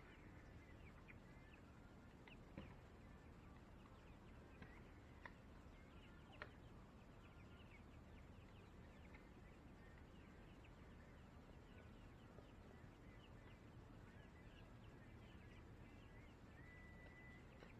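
Near silence: faint bird chirps in the background, with a few light taps in the first half.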